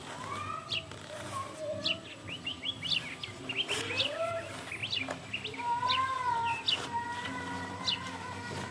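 Small birds chirping repeatedly, with a few rising gliding calls. A long, wavering high whine is held through the second half.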